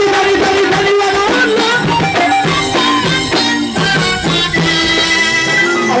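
Loud live Egyptian wedding music: a sustained, ornamented melody over frame-drum and tambourine beats.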